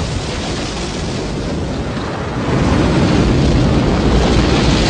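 Rocket engines firing at liftoff: a dense, steady noise, heaviest in the low end, that grows louder about two and a half seconds in.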